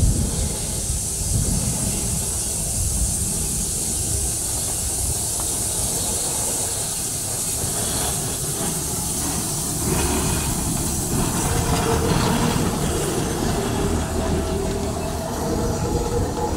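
Shay geared steam locomotive rolling slowly past, with a steady hiss of steam over the low rumble of its running gear. It grows a little louder about ten seconds in as it comes alongside.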